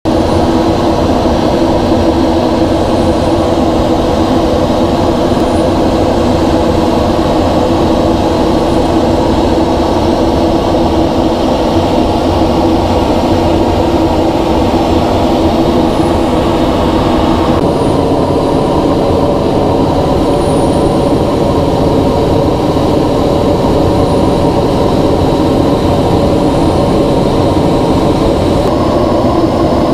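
Steady cockpit drone of a NASA ER-2 in high-altitude flight: noise from its turbofan engine and the airflow, with a steady multi-toned hum. The tone shifts slightly a little past halfway through.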